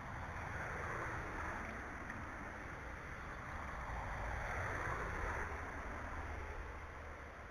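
Wind buffeting the camera's microphone: a rushing noise over a low rumble, swelling about a second in and again around four to five seconds in.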